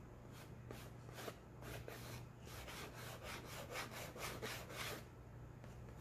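White chalk scratching across black poster board in quick short strokes as lines are drawn, about four or five a second in its busiest stretch, stopping about five seconds in.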